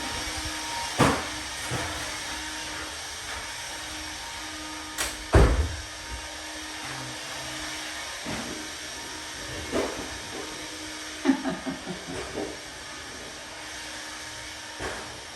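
Heavy rain falling as a steady hiss, with a few sharp knocks and thumps: the loudest, with a low thump, comes about five seconds in, and a quick cluster of smaller ones comes near twelve seconds.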